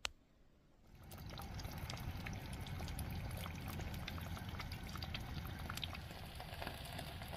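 Eggs sizzling and crackling in a cast-iron skillet over a gas burner, starting about a second in: a steady sizzle full of small pops, with a low rumble underneath. A single sharp click comes right at the start.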